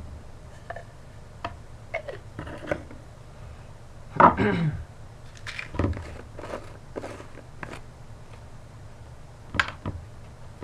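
Small plastic and glass condiment bottles handled over a bowl: scattered clicks and knocks of caps and bottles, with a louder sound that falls in pitch about four seconds in and a sharp click near the end.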